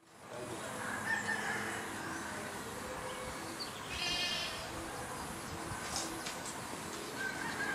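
Rural morning ambience of chickens and other birds calling, fading in at the start, with scattered short calls and one brief, louder call about four seconds in.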